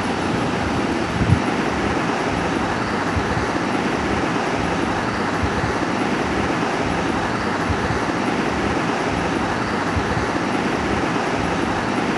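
Steady background noise with a soft low thump about a second in.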